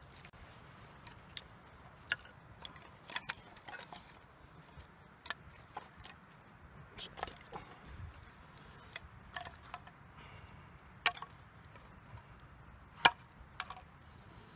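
Scattered sharp clicks and knocks of hard pieces being handled and set down in a small folding camp grill, irregular, with the loudest knocks about 2, 11 and 13 seconds in.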